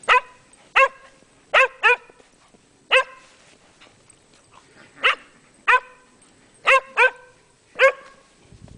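Welsh Springer Spaniel barking excitedly while leaping up at a person: about ten short, loud barks at irregular intervals, some in quick pairs.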